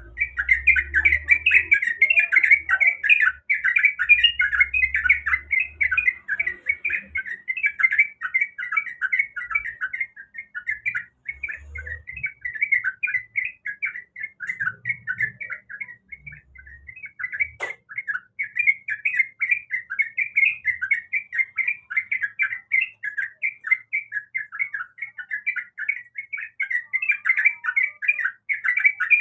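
Yellow-vented bulbul (trucukan) chattering in a fast, unbroken stream of short notes, with a single sharp click about two-thirds of the way through.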